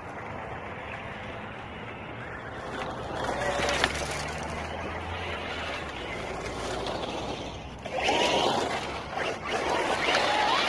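Traxxas Slash 4x4 radio-controlled truck driving on loose gravel, its tyres spraying stones. About eight seconds in it gets louder as it comes close, its electric motor whining up and down in pitch with the throttle.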